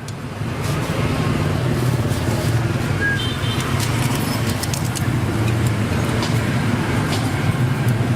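Steady low rumble of motor traffic, with scattered faint clicks and a brief high beep about three seconds in.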